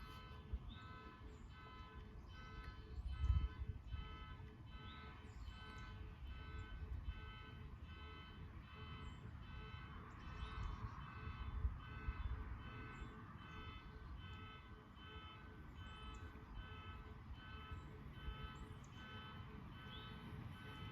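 Faint electronic beeping, a short multi-tone beep repeating about three times every two seconds without a break, over a low rumble of wind or handling on the microphone.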